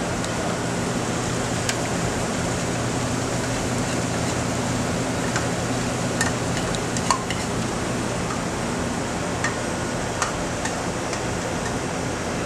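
Steady drone of a commercial kitchen exhaust hood fan with a low hum. A few light clicks and taps of a utensil against the pan come through it, the sharpest about seven seconds in.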